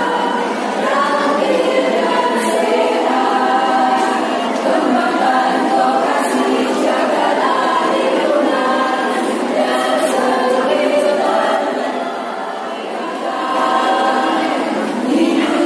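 Women's choir singing an Indonesian march song together, the voices carrying a continuous melody; the singing softens briefly about twelve seconds in, then comes back up.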